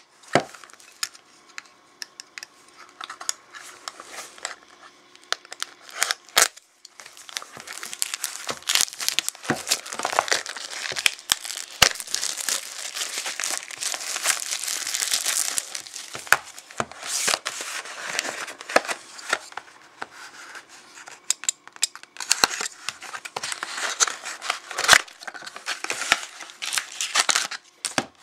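Clear plastic shrink wrap crinkling and tearing as it is pulled off a sealed trading-card box, with many sharp, irregular crackles.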